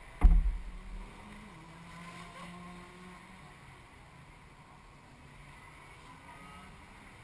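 A single heavy low thump about a quarter second in, then a faint, steady two-stroke kart engine drone from karts running on the track.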